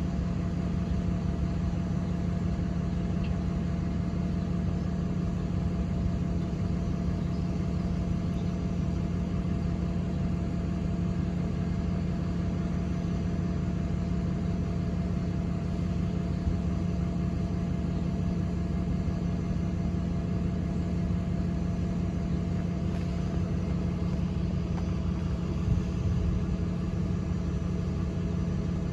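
Motor vehicle engine idling steadily: an even low hum with a constant tone, unchanged throughout apart from a slight swell about 26 seconds in.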